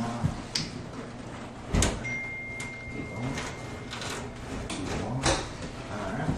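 Knocks and scraping as a heavy Fantasy Brown stone countertop is worked back over the cabinets a little at a time, with a sharp knock about two seconds in and another near the end. A thin steady tone sounds briefly just after the first knock.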